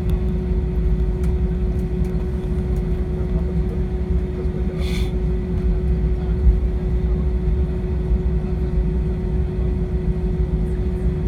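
Steady jet airliner cabin noise: a continuous low rumble with a constant hum from the engines and airflow. A brief higher hiss comes about halfway through.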